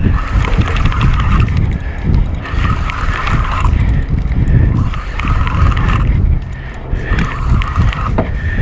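Spinning fishing reel being cranked in spurts of about a second each, under heavy wind noise on the microphone.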